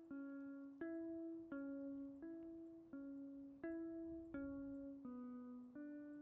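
Background music: a gentle plucked-sounding tune, a new note or pair of notes about every 0.7 seconds, each ringing and fading.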